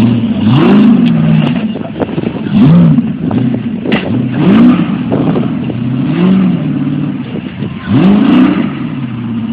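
Rock-crawler buggy's engine revving in several short bursts, its pitch climbing and falling back each time as the driver blips the throttle to crawl over the rocks.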